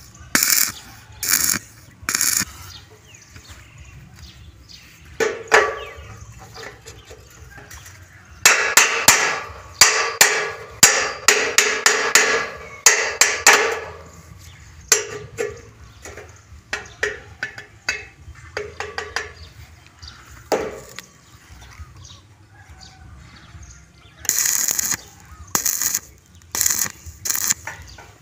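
Hammer striking steel tube, a series of metallic knocks with some ringing, in irregular groups. The fastest, densest run of blows comes about a third of the way in.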